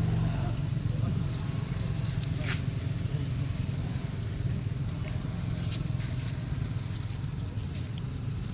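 A steady low rumble with a few faint, short ticks over it.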